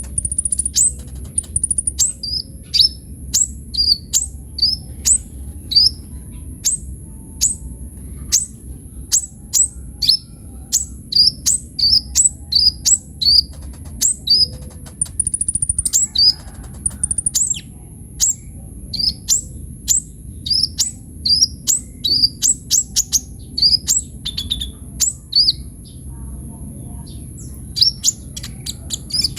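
Kolibri ninja sunbird singing a busy, fast song of sharp, high chirps, each sweeping quickly down in pitch, several a second and nearly without pause.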